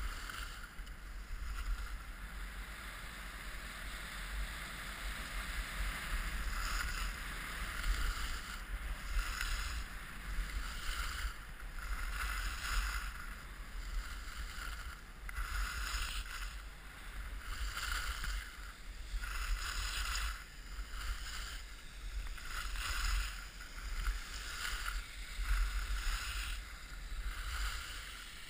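Skis hissing and scraping over packed snow, the sound swelling every second or two with each turn, over a steady low rumble of wind on the body-worn camera's microphone.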